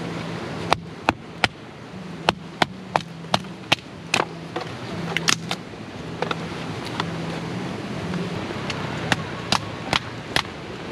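A hatchet splitting firewood into kindling with quick, sharp chops, about seventeen strikes mostly in runs of two to four with a short pause around the middle, over a steady hiss.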